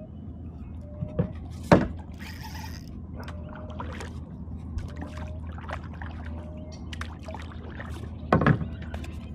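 Kayak paddle strokes through calm water, with dripping and trickling off the blades. A few sharp knocks are heard, the loudest about two seconds in and near the end.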